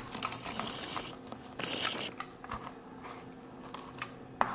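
Knife and fork cutting into a grilled ribeye steak on a plate: light scattered clicks and brief scrapes, one louder scrape about two seconds in.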